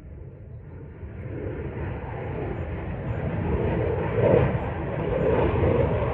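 Jet noise of an RAAF F-35A Lightning II's single Pratt & Whitney F135 turbofan, growing steadily louder as the fighter comes in: a deep rumble with a rushing upper part that swells over the first four seconds and stays loud.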